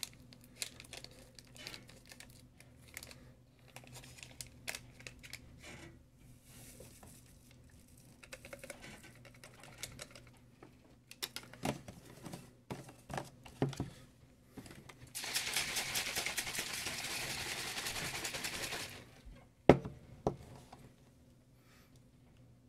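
Plastic shaker bottle being handled while pre-workout powder is mixed in. First come scattered crinkles and small plastic clicks, then about four seconds of rapid, steady shaking, and a single sharp click near the end.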